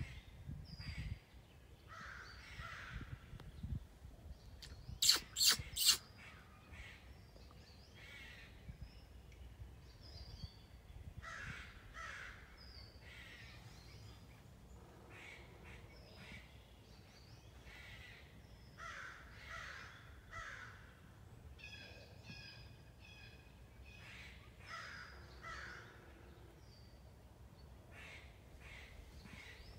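American crows cawing, with three loud caws in quick succession about five seconds in and fainter bouts of cawing scattered through the rest.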